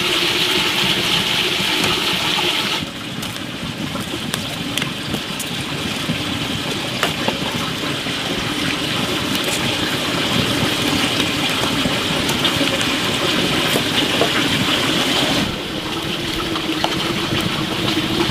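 Open cooking fire of dried corncobs and wood burning with a steady rushing noise and many small scattered crackles and pops. A steady higher hiss runs in the opening seconds and comes back near the end.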